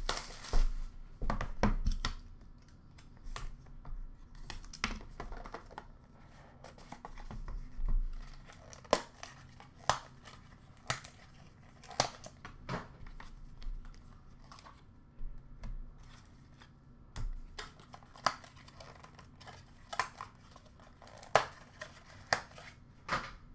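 A trading-card box and its packaging being opened and handled: irregular sharp clicks and taps, with some crinkling and tearing of wrapping.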